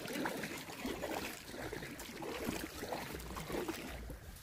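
Kayak paddle strokes through calm water: irregular swishes and splashes as the blades dip and pull, with water dripping off them.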